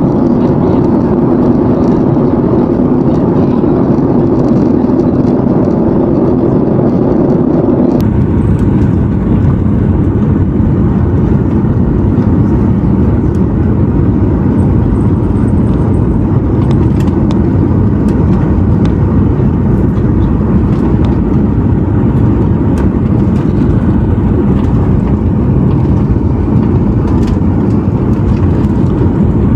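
Steady cabin noise of a Boeing 737-800 airliner: engine and airflow rumble with no speech. About eight seconds in, the noise changes abruptly to a deeper, broader rumble, and faint ticks can be heard later on.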